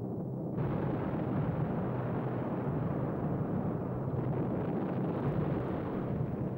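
Dense, steady rumble of a wartime bombing raid: the low drone of bomber engines, joined about half a second in by the rumble of explosions and fires, with no single distinct blast standing out.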